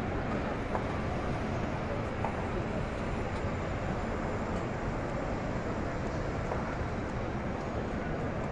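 Steady din of a large crowd of pilgrims walking and praying around the Kaaba, many voices blended together with none standing out.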